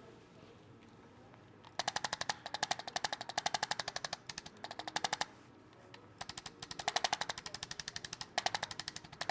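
Handheld chiropractic adjusting instrument firing rapid mechanical taps, about ten a second, in several bursts starting about two seconds in, with a short break around six seconds.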